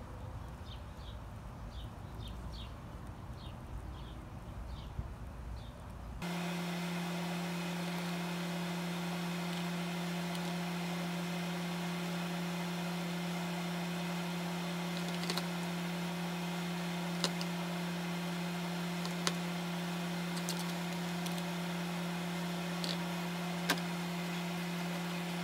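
Quiet outdoor ambience with a regular run of faint high chirps, about two a second. About six seconds in it gives way to a steady electrical hum from a kitchen appliance, a low tone with a fainter one above it. A few light clicks come through the hum while raw shrimp are threaded onto wooden skewers.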